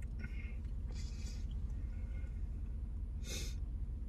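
A man sniffing and breathing through his nose three times, the last sniff near the end the loudest. Under it runs a steady low rumble inside the truck cab.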